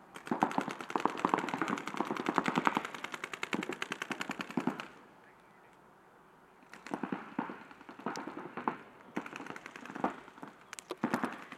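Paintball markers firing in rapid strings of shots: one long run of about five seconds, a pause of about two seconds, then more shorter bursts.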